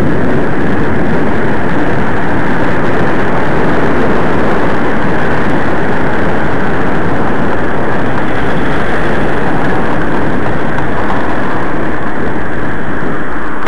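Steady, loud rushing of wind on the microphone of a bicycle-carried camera riding through traffic, with no change over the whole stretch.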